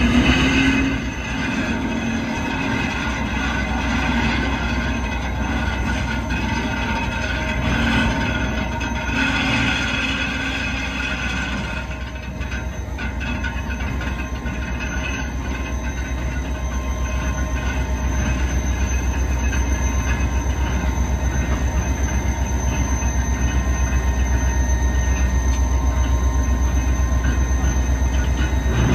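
Diesel locomotive engine idling with a steady low rumble while the locomotive is turned on a railway turntable. For roughly the first dozen seconds there are squealing metallic tones, and the sound grows somewhat louder in the second half.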